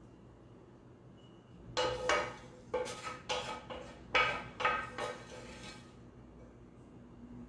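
A kitchen utensil scraping and knocking against a dish: about ten quick clattering strokes between about two and six seconds in, as cooked vegetables are spread out.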